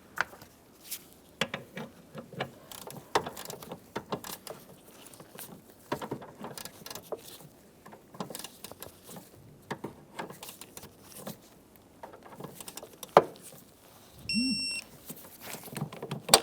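Hand tools working a 13mm hinge nut: scattered metallic clicks and knocks of a wrench and socket, with no steady rhythm. A short, high electronic beep sounds near the end.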